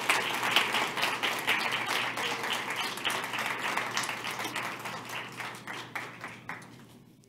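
Audience applauding, a dense patter of many hands clapping that slowly dies away over the last few seconds.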